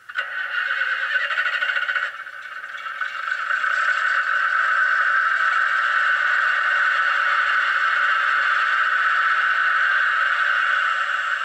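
Model railway DCC sound decoder playing a recorded Class 108 DMU diesel engine through the model's small speaker. It comes on suddenly from silence, dips about two seconds in, then builds up and runs steadily.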